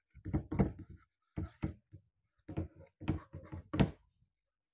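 Chalk writing on a blackboard: short scratching and tapping strokes that come in several brief bursts with pauses between them.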